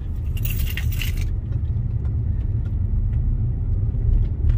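Steady low rumble of a moving car's road and engine noise heard from inside the cabin, with a short burst of high, bright noise about half a second in that lasts under a second.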